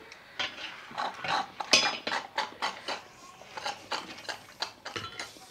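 Chopsticks clicking and scraping on a steel plate in irregular short knocks, with wet eating and sipping sounds.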